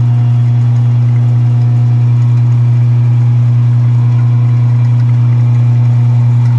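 Five-horsepower electric motor, controlled by a drum switch, running steadily with a loud, even low hum.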